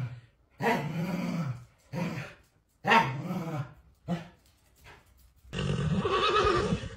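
A corgi growling in four drawn-out, grumbling calls, the first the longest. About five and a half seconds in, a German Shepherd gives a wavering, higher-pitched bark.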